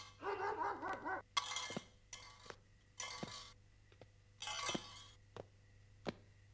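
Footsteps on pavement: sharp, clicking steps at an even walking pace, about two or three a second. A short warbling sound comes in the first second, and several brief bursts of hiss come between the steps.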